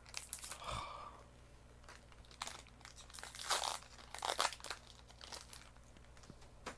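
A foil trading-card booster pack being torn open, its wrapper crinkling in a series of short rustling bursts.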